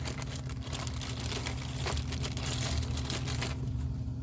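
Vinyl sheeting crinkling and crackling as it is handled, stopping about three and a half seconds in, over a steady low hum.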